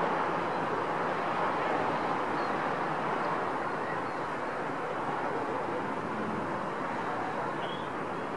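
Steady hiss and hum of distant city traffic heard from high above the city, easing slightly near the end.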